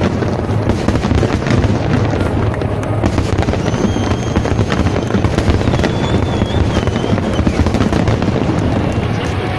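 Fireworks display: a dense, continuous barrage of crackling and popping bursts.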